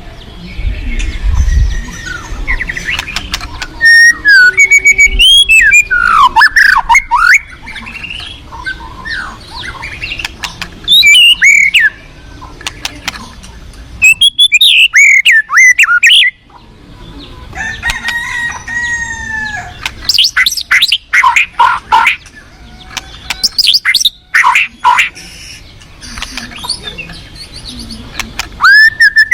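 White-rumped shama (murai batu) singing in loud bursts of quick rising and falling whistles and sharp rapid notes, several phrases separated by short pauses, over the steady rush of a stream.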